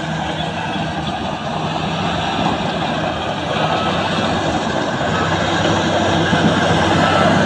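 LiuGong crawler bulldozer's diesel engine running under load, with the noise of its steel tracks, as it pushes a blade full of soil. The sound grows steadily louder as the machine comes closer.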